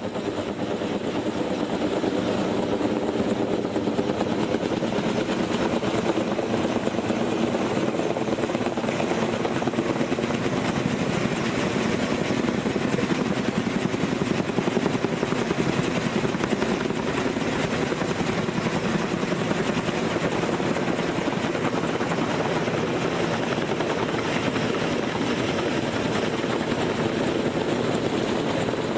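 Kaman K-MAX heavy-lift helicopter running steadily, a fast rotor beat over a steady engine drone.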